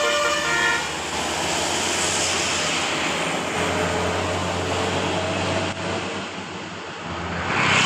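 A bus's telolet horn playing its multi-note tune, which stops about a second in. Then the bus's engine hum and a loud rushing noise as it goes by, swelling near the end.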